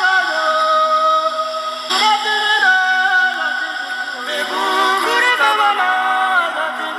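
Music: a singing voice holding long notes that step and slide between pitches.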